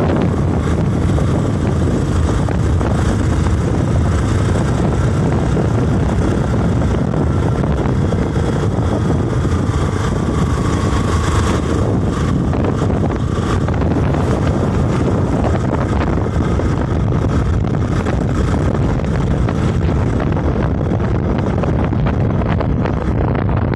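Steady running noise of a moving road vehicle, engine and tyres, with wind on the microphone.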